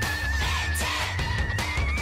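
Upbeat background music with heavy bass and regular drum hits under a wavering high lead melody.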